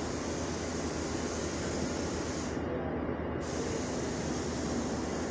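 BMW M50 inline-six engine running steadily at idle, with a strong even hiss over a low steady hum.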